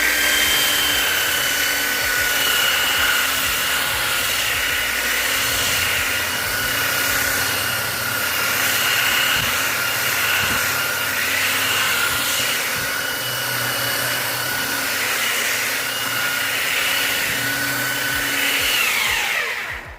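Electric power sander running steadily across wood with a constant whine. It is switched off near the end and its pitch falls as it spins down.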